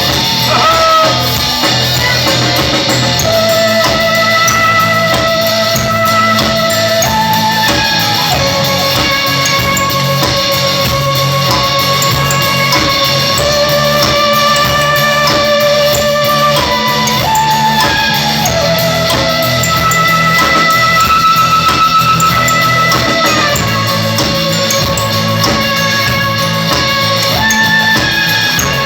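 Live rock band playing an instrumental break: a lead instrument, likely electric guitar, plays a slow melody of long held notes with vibrato over bass and a steady drum beat.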